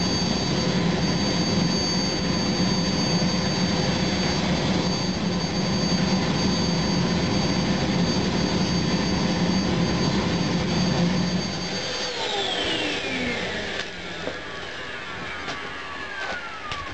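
Propane-fired crucible furnace melting cast iron, running with a loud, steady rush and high whine. About twelve seconds in the sound drops and a whine falls steadily in pitch for several seconds.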